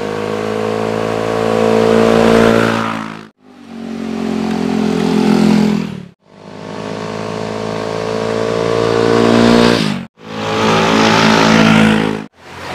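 A vehicle engine revving up in four runs, each rising slightly in pitch and growing louder before it cuts off abruptly, as if separate takes were spliced together.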